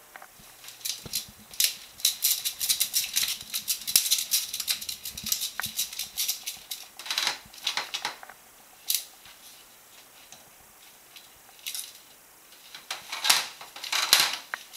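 Black-tailed prairie dog scrabbling through plastic tunnel tubes: rapid clicking scratches of claws on hollow plastic. A dense run lasts several seconds, then after a pause a second burst comes near the end.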